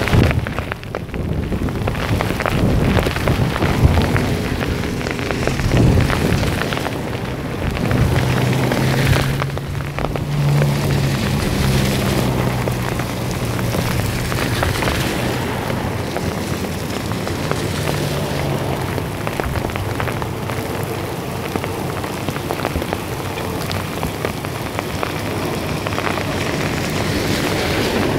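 Heavy rain pouring down in a storm, swelling and easing over the first ten seconds, with a low steady hum through the middle stretch.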